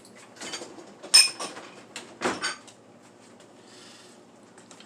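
Kitchenware clinking against a cooking pot: one sharp, ringing clink about a second in, then two duller knocks about a second later.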